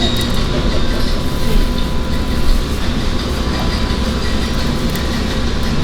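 Steady, loud mechanical rumble with a faint continuous hum running through it.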